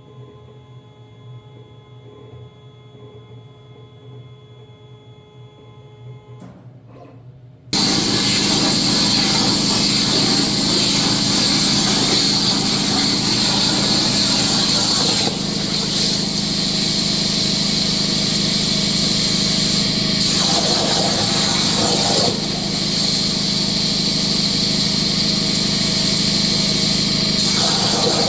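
CNC plasma cutter: a low steady hum, a brief click, then the plasma torch arc fires abruptly about eight seconds in and cuts steel plate with a loud steady hiss over a constant low hum, dipping slightly a couple of times as the torch travels.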